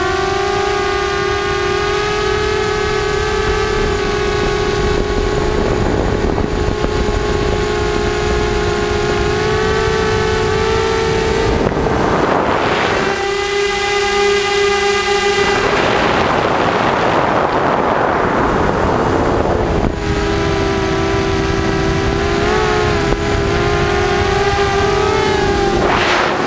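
ZMR250 racing quadcopter's brushless motors and propellers whining steadily in flight, the pitch wavering as the throttle changes, with several spells of rushing air noise on the onboard camera's microphone.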